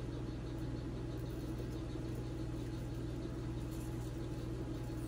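Steady low motor hum with no change in pitch or level.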